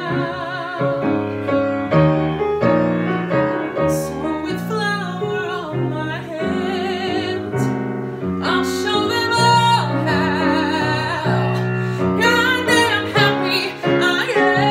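Solo voice singing sustained notes with vibrato over piano accompaniment.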